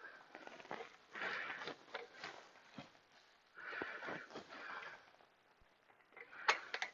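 Breathing and sniffing close to the microphone, in soft swells every couple of seconds, with a few small sharp clicks near the end.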